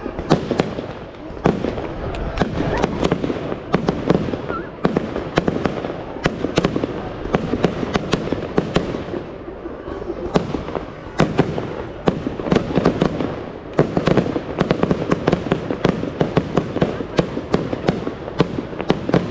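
Aerial fireworks display: many sharp shell bursts in quick succession over a continuous crackle.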